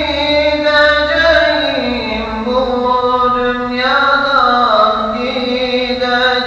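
A mosque muezzin chanting solo and unaccompanied into a handheld microphone, singing a Turkish Islamic hymn (ilahi). A single man's voice holds long notes joined by slow, ornamented glides in pitch, dropping about two seconds in and rising again about four seconds in.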